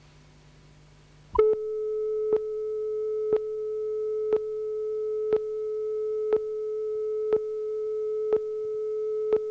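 Countdown-leader line-up tone on a videotape commercial: after a faint hum, a steady pure tone starts about a second and a half in. A short click marks each second of the count, and the tone cuts off suddenly at the end.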